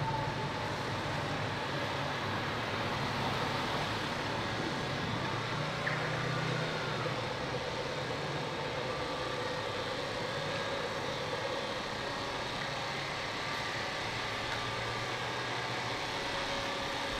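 Steady city street traffic noise, with the low hum of a vehicle engine running.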